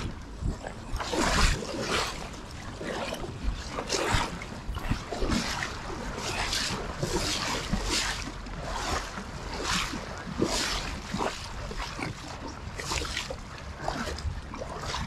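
River water splashing and sloshing in a string of short, irregular splashes, about one every half-second to a second, over the steady rush of the stream.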